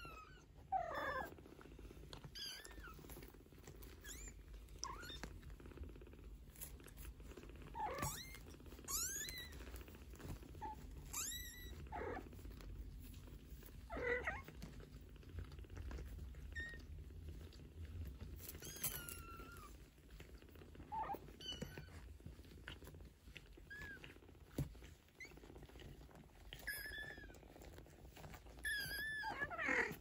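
Mother Maine Coon cat purring steadily while her two-week-old kittens nurse, with frequent short, high squeaky mews from the kittens, each rising and falling in pitch.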